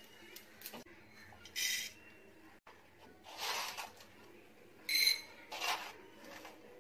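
Whole black peppercorns dropped into a small empty metal pan for dry roasting, giving a few short rattling clinks, the loudest with a brief metallic ring. Several separate short clatters.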